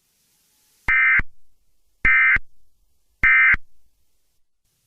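Emergency Alert System end-of-message signal: three short, identical bursts of SAME digital data about a second apart. It marks the close of the alert.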